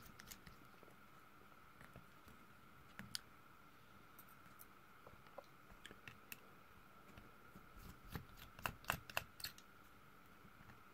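Faint, scattered clicks of a small Phillips screwdriver and screws working on a smartphone's inner frame as the screws are taken out, with a quick run of sharper clicks about eight to nine and a half seconds in. A faint steady high tone runs underneath.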